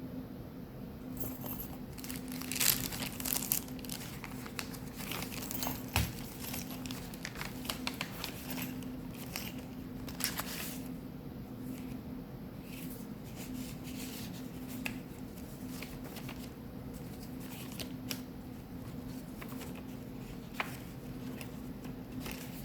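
Paper pages and loose paper ephemera of a handmade junk journal being turned and handled: rustling and crinkling, busiest around three and ten seconds in, with a single knock about six seconds in. A steady low hum runs underneath.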